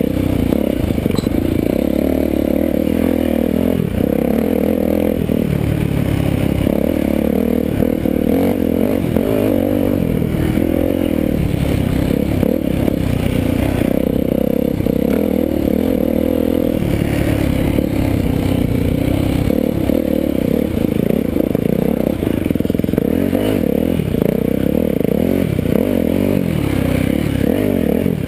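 Dirt bike engine running hard, its pitch rising and falling with the throttle as the bike is ridden over rough, rocky ground.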